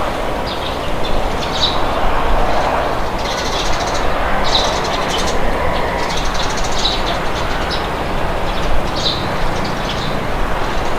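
Steady wind with birds chirping over it, short high chirps coming every second or two.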